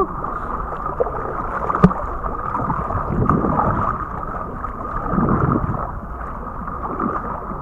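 Water sloshing and splashing against a plastic sit-on-top kayak being paddled on choppy sea, swelling twice a couple of seconds apart as the paddle strokes. A single sharp knock comes about two seconds in.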